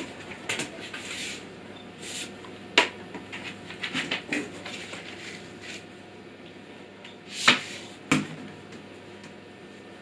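Handling noise from a shop vacuum's plastic hose and wand: scattered knocks, clacks and rustles as they are moved about, with two sharper clacks, one about three seconds in and one about seven and a half seconds in. The vacuum motor is not running.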